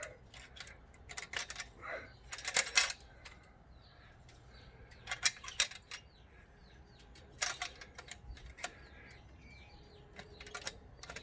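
Metal latch and door of a galvanized-steel chicken pen clinking and rattling as it is lifted and worked, in a few short bursts of clicks.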